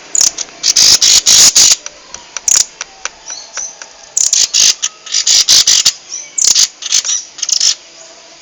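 Rambatan loreng songbird calling hard: two bouts of loud, rapid, harsh chattering calls with a pause of over a second between them, and a few thin high chirps in the quieter gaps.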